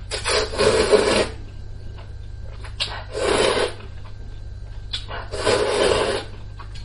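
A person slurping hot and sour glass noodles (suanla fen) up from a bowl of soup, three long slurps about two seconds apart.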